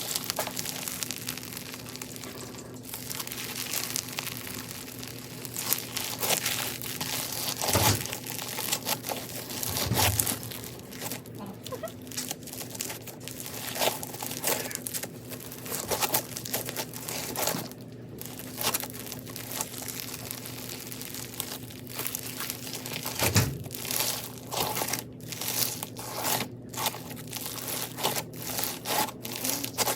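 Bead-packed crunchy slime being squeezed and kneaded by hand, crackling and popping with many small clicks as the beads shift. Near the end the squeezes come quicker and more regularly.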